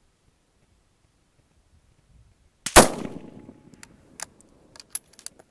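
A single shot from a Stevens 200 bolt-action rifle in .223, sudden and loud, coming a little under three seconds in, with a short decaying tail. It is followed by a quick run of sharp metallic clicks as the bolt is worked.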